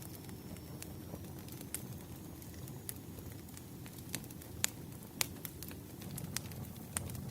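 Firewood burning: a steady low rustle under scattered sharp crackles and pops, the loudest pair about four and a half and five seconds in.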